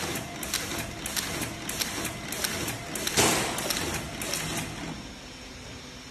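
Face-mask sheet suction-and-counting machine running: a string of sharp mechanical clicks, about two a second, with a louder rushing noise about three seconds in that fades away, leaving a steady hiss.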